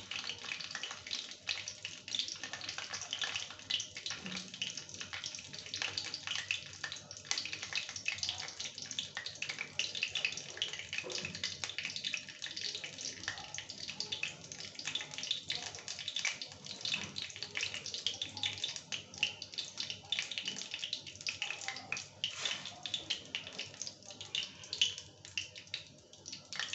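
Cumin seeds sizzling and crackling in hot oil in a kadai, a steady dense crackle of tiny pops. This is the tempering (tadka) stage.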